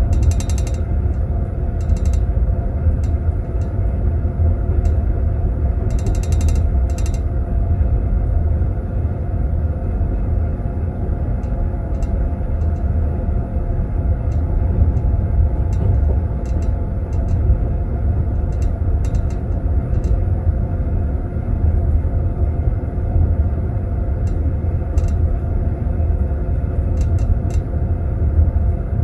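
Moving passenger train heard from inside a sleeping-car compartment: the steady rumble and clatter of the carriage wheels on the rails. Teaspoons jingle against tea glasses in metal glass holders, briefly about half a second in and again around six seconds in, with lighter clinks here and there.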